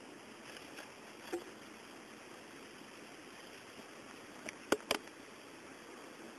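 Steady outdoor background hiss with a few sharp clicks, one about a second in and two loud ones close together about three quarters of the way through.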